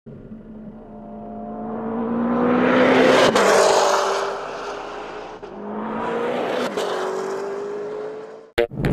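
Two cars speed past one after the other, each engine note climbing as it approaches and dropping in pitch as it goes by, the passes about three and a half seconds apart; the first is the louder.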